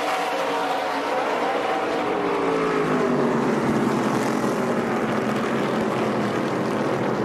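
A pack of NASCAR Craftsman Truck Series trucks racing, their V8 engines running hard in race broadcast track audio. Several engine notes fall in pitch over the first three seconds, then hold steady.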